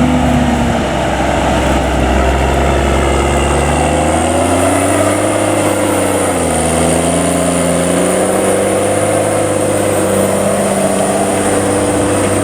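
JCB Fastrac 7270 tractor's Cummins diesel engine running under load, pulling a six-furrow plough. The engine note dips about halfway through, then recovers and holds steady.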